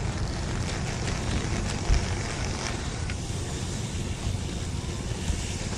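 Wind buffeting the microphone over steady low rumble from a recumbent trike rolling on pavement, with a single thump about two seconds in.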